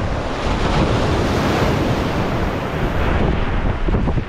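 Sea waves washing and breaking over shoreline rocks, mixed with heavy wind buffeting the microphone.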